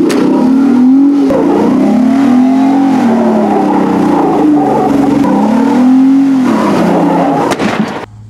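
Jeep Wrangler Unlimited Rubicon engine revving up and down under load while crawling up a rock ledge, its pitch rising and falling in several swells. A few sharp clicks and knocks sound among the revs, and the engine sound drops away suddenly near the end.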